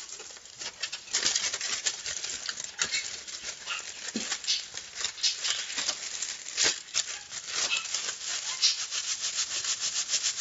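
Crumpled aluminium foil crinkling as hands handle and squeeze it: a continuous dense crackle of many small crisp snaps.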